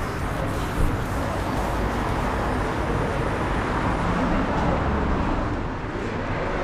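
Steady road traffic noise: cars running along a city street.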